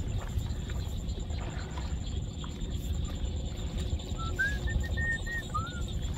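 Steady low rumble of wind buffeting the microphone. About four seconds in, a bird starts a run of short whistled chirps that rise and fall in pitch.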